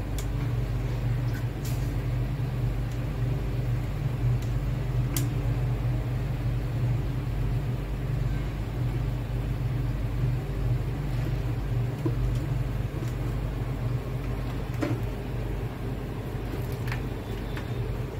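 Aquarium air pump humming steadily as it drives the tank's filter, with a few light clicks and taps on top.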